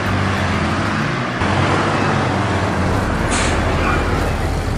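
Car engine sound effects: several engines running steadily, the engine note shifting about a second and a half in, with a short hiss a little past three seconds in.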